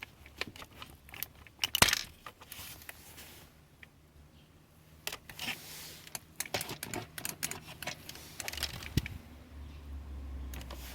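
Scattered clicks and light rattles of small parts being handled, loudest a little under two seconds in.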